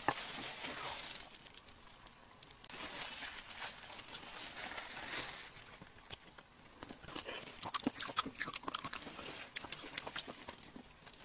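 Plastic-gloved hands pulling apart a cooked alligator head in sauce: faint rustling and tearing, then a run of sharp clicks and snaps from about seven seconds in.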